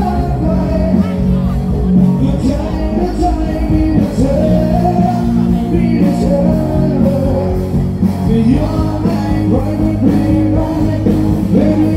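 Loud music with a singing voice over a sustained bass line.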